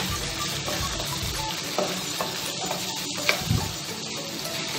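Parboiled goat innards and tomato sizzling in oil in a cooking pot while a wooden spatula stirs them. A steady sizzle, with a few short knocks and scrapes of the spatula against the pot, the sharpest about three seconds in.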